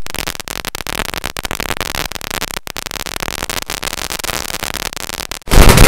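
A string of firecrackers going off in a rapid, dense crackle of pops, turning much louder about five and a half seconds in.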